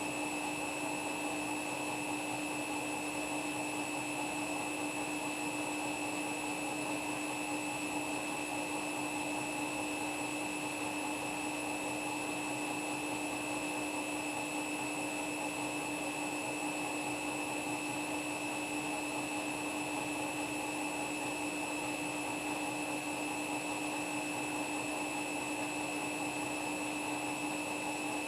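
Front-loading washing machine spinning at steady high speed: an even motor-and-drum whine with a constant hum and a higher steady tone, no thumps.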